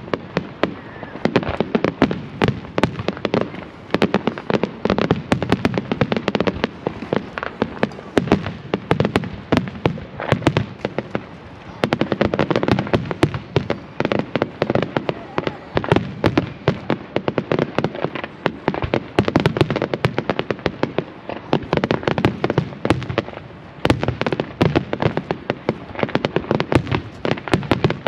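Fireworks display going off in a continuous barrage: many sharp bangs and crackles a second, with no let-up and heavier low booms mixed in.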